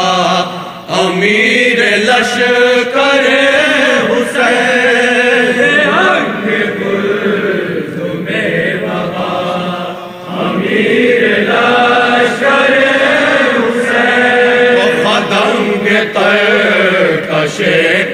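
Group of men chanting a Shia noha (lamentation) without instruments: a lead voice at the microphone with the others singing along.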